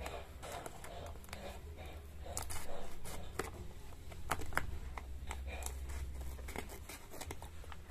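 Scissors snipping through a plastic packaging pouch: a run of irregular sharp snips with light crinkling of the plastic, over a steady low hum.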